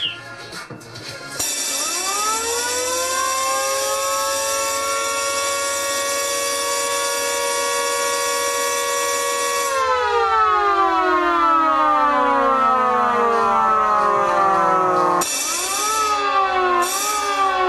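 Motor-driven siren winding up, holding a steady tone, then winding slowly down. A steady high ringing of alarm bells runs with it until about ten seconds in. Near the end a second siren starts, its pitch swinging up and down about once a second.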